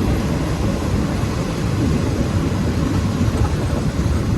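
Passenger train running, a steady low rumble of the carriage and wheels on the track.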